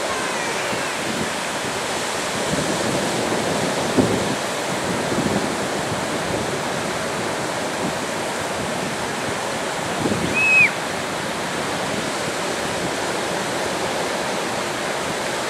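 Steady rush of small waves breaking and washing through shallow water, with a louder surge about four seconds in. About ten seconds in there is a single brief high cry that falls in pitch.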